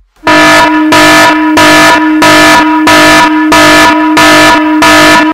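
Electronic interval-timer buzzer sounding loudly in quick pulses, about two a second, for about five seconds, then cutting off suddenly: the signal that a work interval has ended and the rest period begins.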